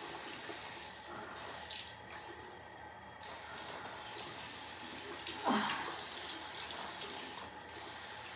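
Bathroom faucet running steadily into a sink while a boy holds his head under the stream to wet his hair.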